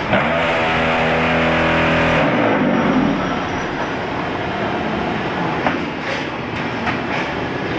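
QTY4-15 concrete block making machine at work. A loud, steady hum, typical of the mould's vibration motors compacting the mix, cuts off about two seconds in. Continuous machinery noise with a few clanks follows.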